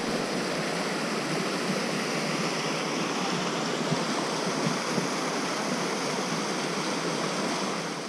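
Small woodland waterfall and stream cascade rushing steadily, a constant water noise.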